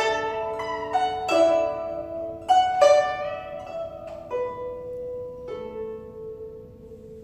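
Ebony-bodied 21-string guzheng (Chinese zither) with a paulownia soundboard, played solo: a run of plucked notes in the first three seconds, then single notes about four and five and a half seconds in. The phrase slows and the last notes ring on and fade away.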